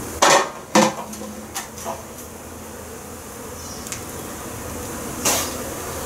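A metal colander and bowl clanking together as the colander, holding wax cappings, is set into the bowl: two loud clanks within the first second, a few lighter knocks after, and one more clank near the end.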